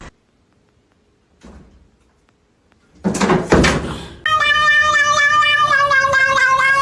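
About three seconds of near silence, then a few knocks, then from about four seconds in a cat's long, drawn-out meow held at a steady pitch that sinks slightly.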